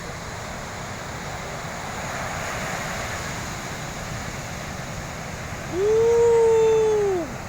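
Heavy ocean surf, a steady rushing wash of big waves breaking. Near the end comes one loud drawn-out call, a person's shout or an animal's cry, that rises, holds for about a second and falls away.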